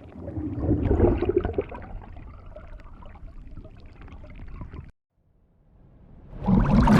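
Water gurgling and splashing: it swells loud about a second in, then settles to a steadier bubbling and cuts off abruptly. After a brief silence a second water effect starts and rises to a loud surge near the end.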